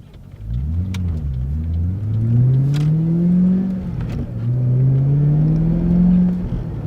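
Ford Falcon XR8's Boss 260 V8 accelerating, heard from inside the car. The engine note climbs three times, dropping back between climbs as it shifts up through the gears, and eases off near the end.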